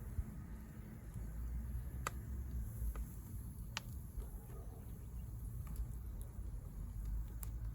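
Firewood burning in a fire pit, with a few sharp crackling pops spaced a second or more apart over a steady low rumble.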